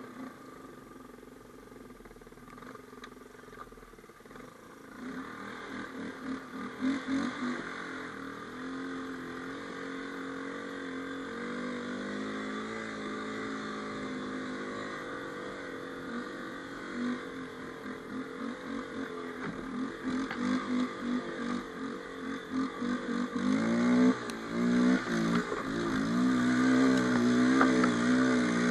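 250 cc ATV engine running under load as the quad works its way through snow. It is softer for the first few seconds, then louder, with the revs swinging up and down as the throttle is worked, most of all in the last few seconds.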